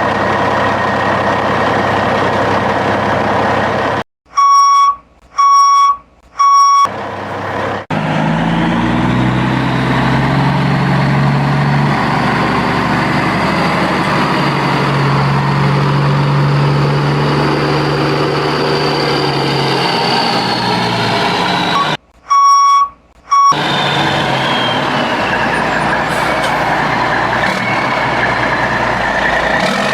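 Train-passing sound effects: a steady rumble with a low engine hum that rises and later falls in pitch, as a train does going past. The rumble cuts out twice for short, evenly pitched electronic beeps, three about four seconds in and two more about twenty-two seconds in.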